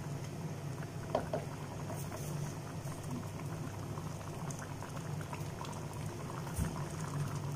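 Thick coconut-milk fish head curry bubbling in a steel pot, a dense run of small bubbles popping over a low steady hum. A couple of soft knocks sound, about a second in and again near the end.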